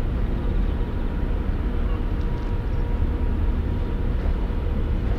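Large ro-pax ferry's engines and machinery giving a steady deep rumble as the ship arrives in harbour, with a faint steady hum above it.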